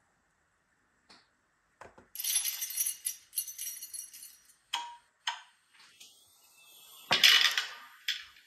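Bursts of hissing sound from the ESU LokSound XL V5 sound decoder's loudspeaker on a Märklin gauge 1 steam locomotive chassis under test. A couple of faint clicks come first, the hiss starts about two seconds in, and the loudest burst comes near the end.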